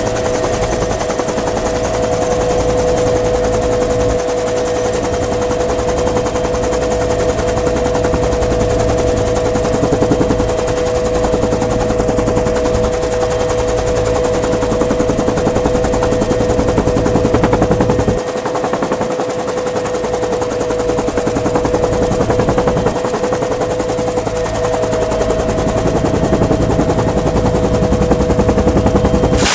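Dillon Aero M134 minigun firing 7.62x51mm rounds at about 50 a second in long sustained bursts that merge into one continuous ripping buzz, with short breaks about 18 and 23 seconds in. Under it runs the steady whine of the UH-1 Huey it is mounted in.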